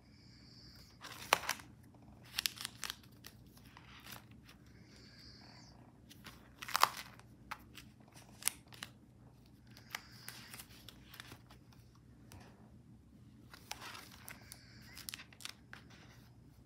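Stiff collaged paper pages of a coil-bound glue book being turned: scattered rustling and crinkling, with a couple of sharper crackles.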